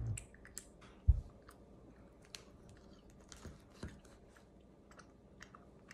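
Quiet chewing of soft, chewy Gushers fruit snacks coated in strawberry tajin, with small wet mouth clicks. A single low thump about a second in.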